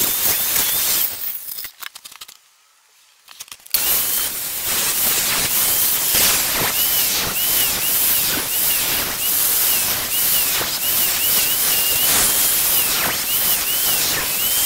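Angle grinder running against wood as it carves a staff head. Its whine dips and recovers about twice a second as the disc bites. Before that, a steady hiss cuts off about a second in, and there is a short stretch of near silence until the grinding starts.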